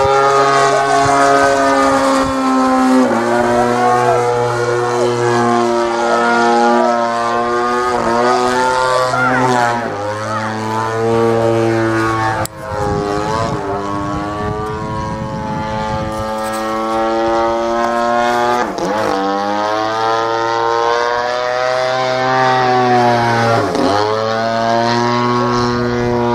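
MLD 35cc single-cylinder two-stroke petrol engine of an HK Slick 540 radio-controlled plane, turning a 20x8 propeller in flight. Its note rises and falls again and again as the plane manoeuvres, with a brief sharp dip in loudness about halfway through.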